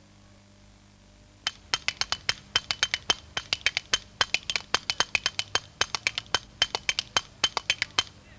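A pair of spoons played against the thigh as a rhythm instrument: a fast run of sharp clicks, about seven a second with brief breaks, starting about a second and a half in.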